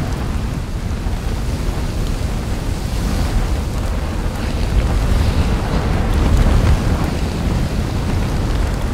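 Erupting volcanic fissure: a steady, deep rumbling roar that swells and eases slightly.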